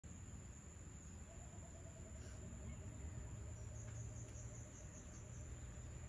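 Faint evening insect chorus: steady high-pitched insect trilling over a low background rumble. A rapid run of low repeated notes comes in about a second in and lasts about three seconds.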